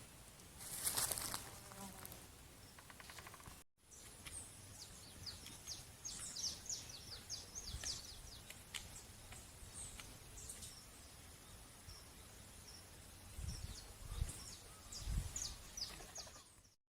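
Small songbirds chirping in a quick series of short, high, downward-sweeping notes. A brief loud buzz sounds about a second in, and a few low thumps come near the end.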